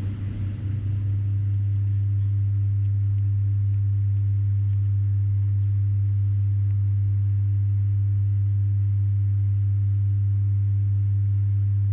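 A steady, loud low hum: one unchanging deep tone with a fainter higher overtone.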